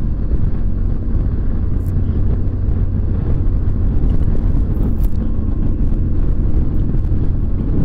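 BMW R1200GS boxer-twin engine running at a steady cruise, with a constant low drone under steady wind and road noise.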